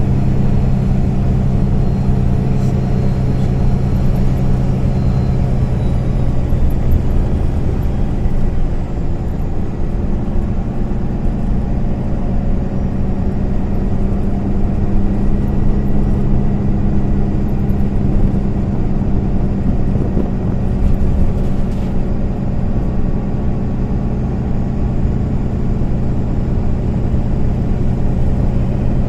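Interior sound of a MAN Lion's City A20 NL city bus under way: the engine drones steadily over road and tyre rumble. About nine seconds in the drone dips briefly and settles at a slightly changed pitch.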